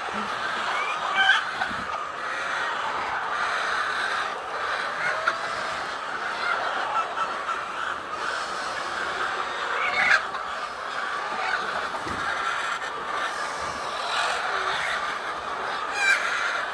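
A flock of hens clucking and calling together in a steady din, with a few louder squawks about a second in, around ten seconds and near the end.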